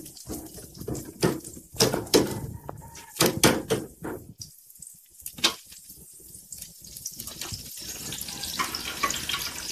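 Metal ladle scraping and clinking against a stainless steel frying pan as chopped onion, garlic and tomato are stirred in hot oil, in a quick run of strokes over the first few seconds. Oil sizzles underneath, the hiss growing stronger near the end.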